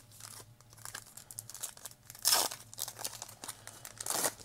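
Foil trading-card pack being crinkled and torn open by hand, with two louder rips, the louder about two seconds in and another near the end.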